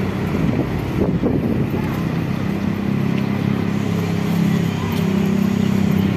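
Steady low engine drone over city traffic noise.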